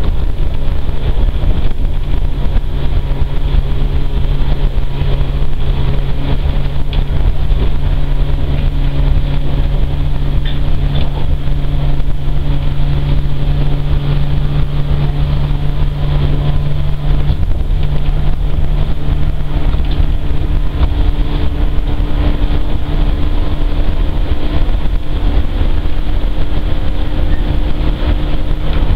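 Electric train running at speed, heard from inside the passenger car: a steady deep rumble from the running gear with a constant low hum over it.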